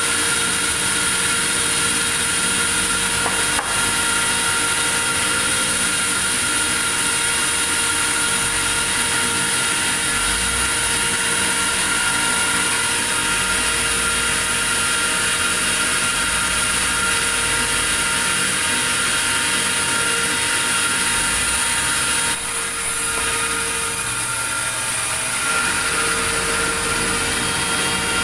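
A machine running steadily, with a high whine over several steady lower tones; it eases slightly about 22 seconds in.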